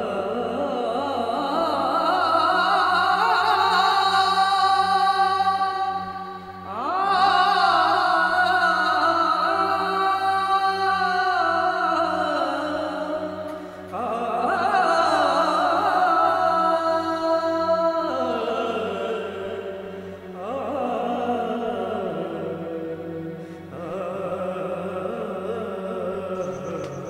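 Background music: a voice singing long held phrases that slide in pitch, each lasting several seconds, over a steady low drone.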